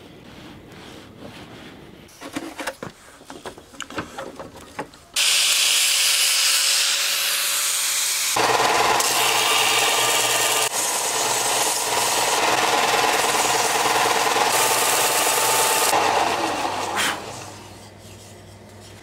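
Ryobi bench belt sander grinding a wooden knife-handle blank: a loud, even sanding noise that starts suddenly about five seconds in and winds down near the end. Before it come a few light knocks and rubs of the wood being handled.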